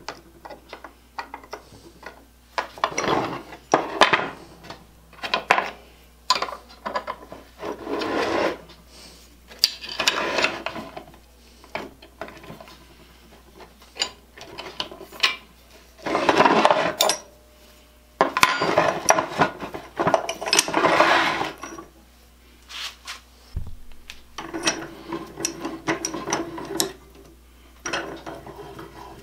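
A small bench vise being handled and reassembled by hand: its metal parts scrape, rub and slide in irregular bursts about a second long, with scattered clicks and knocks against the wooden workbench top.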